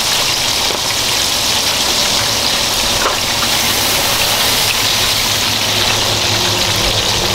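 A wok of flour-thickened broth sauce boiling and sizzling hard over a high gas flame: a steady, loud rushing hiss with a faint low hum under it.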